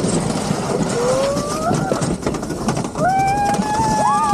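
Mountain-coaster cart running fast down its rail track with a steady rumble and wind noise. A child's voice rises in a gliding shout about a second in, and a long held shout of excitement comes near the end.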